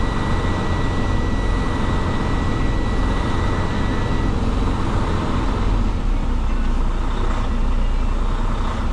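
Semi truck's Detroit diesel engine idling steadily, heard from inside the cab. A steady high-pitched tone sounds over it and cuts off about four seconds in.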